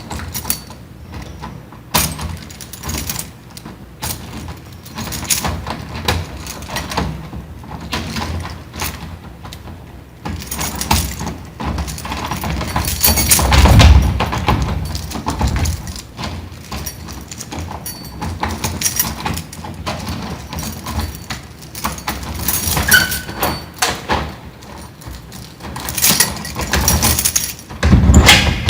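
Door lock being worked over and over: a long series of sharp clicks, clacks and rattles, with louder bursts about halfway through and again near the end.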